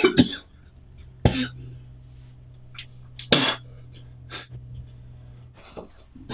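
A man coughing and spluttering in several short, sharp bursts, the loudest about three seconds in, over a steady low hum.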